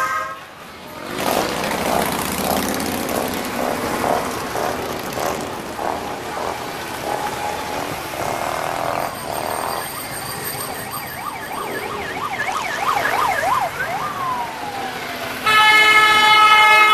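Motorcycles passing in a parade while a siren yelps rapidly up and down, then winds down. Near the end a loud multi-tone horn blast sounds.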